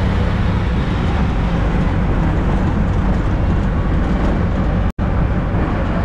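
Steady rumble of wind and road noise from a moving auto rickshaw in city traffic, with no horn standing out. The sound cuts out for an instant about five seconds in.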